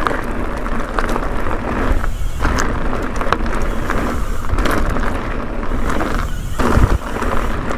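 Ibis Ripmo V2S mountain bike ridden fast over a loose gravel and rock trail: the knobby tyres crunching and rumbling over stones, with scattered clicks and rattles from the bike over the bumps.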